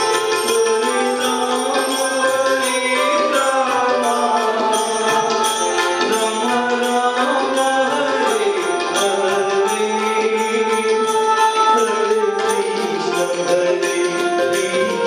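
Instrumental Indian bhajan music: a keyed melody instrument plays a flowing tune while tabla and manjira hand cymbals keep a steady, even rhythm.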